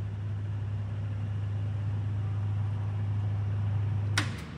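Hydraulic pump motor of a Fendo 350M band saw humming steadily as it lifts the saw arm on its automatic rapid upward travel, blade stopped; it cuts off suddenly near the end as the arm reaches the top.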